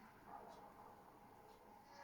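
Near silence: faint room tone with two soft ticks.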